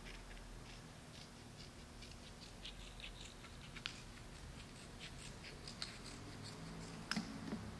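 Small scissors snipping through a sheet of aluminium foil: a run of faint, crisp snips and crinkles, with one sharper click about seven seconds in.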